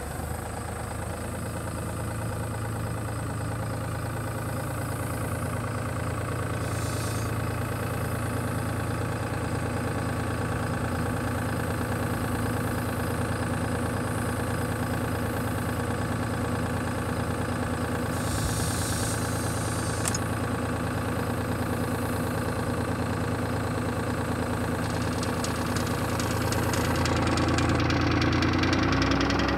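New Holland 4WD farm tractor's diesel engine idling steadily, heard close up at the rear of the tractor, growing a little louder near the end.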